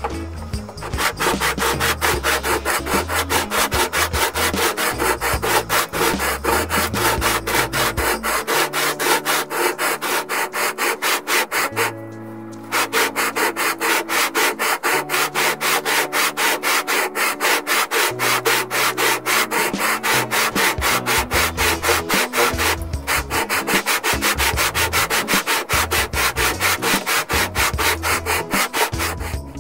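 Background music: a steady, scratchy rhythm of about four strokes a second over a bass line that steps between held notes, dropping out briefly twice.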